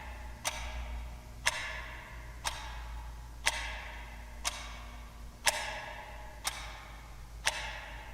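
A clock ticking once a second, eight even ticks with a slight alternation in strength, over a low steady hum.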